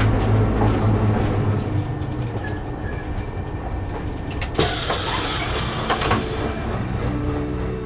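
Diesel railcar running steadily on the line, heard from aboard: a low, even engine hum with wheel and track noise, and two sharp clicks about a second and a half apart midway through.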